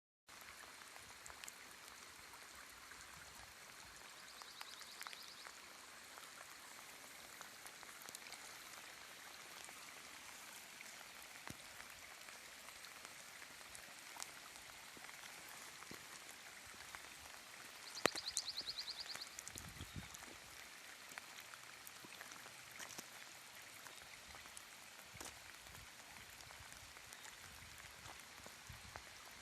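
Rain falling steadily, with street runoff water flowing. About two-thirds of the way through, a sharp click is followed by a brief, quick rattle; a fainter rattle comes about five seconds in.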